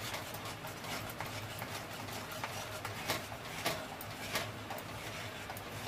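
Masala paste frying in oil on a high flame with a steady sizzle, while a metal spoon stirring it scrapes and clicks irregularly against the metal kadhai.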